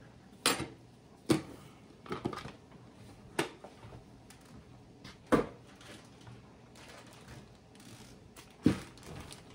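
Kitchen handling noises: about six sharp knocks and clunks at irregular intervals, with quiet stretches between them.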